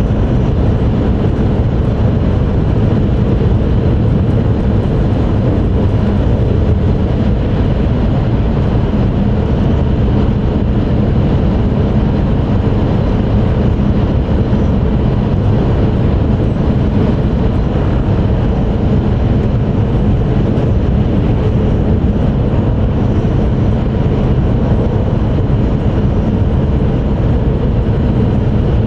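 Cabin noise inside an E5 series Shinkansen car while the train runs: a steady rumble and rush that holds even throughout, with a few faint steady tones in it.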